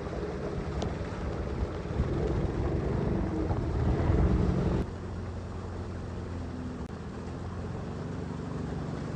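Outboard motor of a narrow boat running steadily at speed, with water rushing along the hull. The mix changes abruptly about five seconds in, leaving the engine hum clearer and the water quieter.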